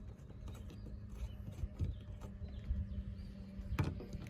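Irregular light clicks and knocks of hands and a hand tool starting the nut on the rear wiper arm's spindle, over a steady low hum.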